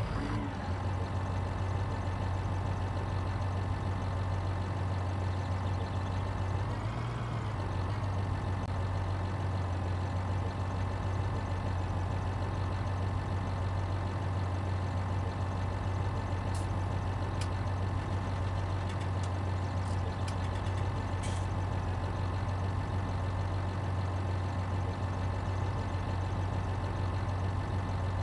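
A steady, low engine hum like an idling motor, even throughout, with a brief rise and fall in pitch about seven seconds in and a few light clicks in the second half.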